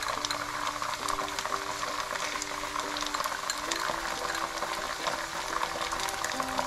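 Ground chilli paste frying in hot oil in a wok with garlic, ginger and onion: a dense, crackling, bubbling sizzle.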